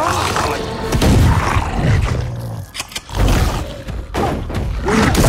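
Monster-film sound effects: deep booms and heavy impacts, with a cluster of sharp cracks just before a big boom about three seconds in.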